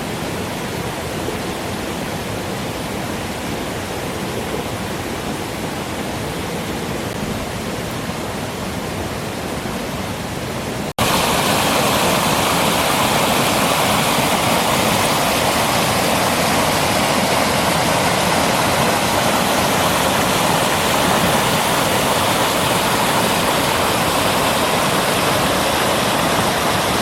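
Rushing water of a forest stream, a steady, even noise; about eleven seconds in it jumps abruptly louder and brighter.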